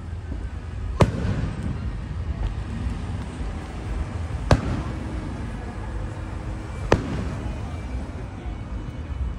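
Aerial fireworks bursting: three sharp bangs, about a second in, near the middle and about seven seconds in, over a steady low rumble.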